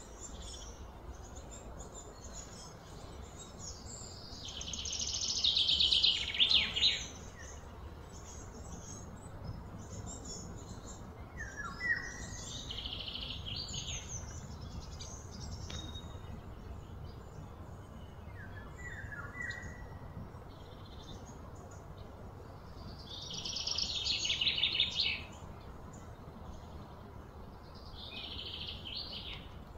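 Outdoor ambience of birds chirping: short falling chirps now and then, and twice a loud, fast trill that swells for about two seconds and then cuts off. A steady low background rumble runs underneath.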